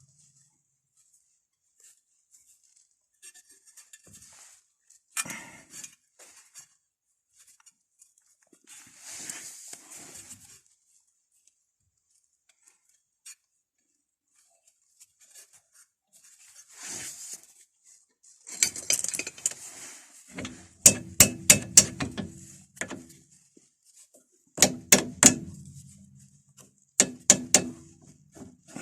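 Metal brake parts and tools clinking and knocking while a disc brake caliper is worked on. Scattered faint handling noises are followed by two clusters of quick, sharp metallic clicks with a short ring, about two-thirds of the way in and again near the end.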